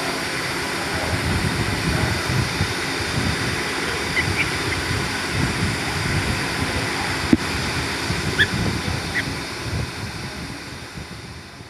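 Steady low rumbling wind noise on the microphone, with a few short, high bird chirps about four seconds in and again about eight seconds in. It fades out near the end.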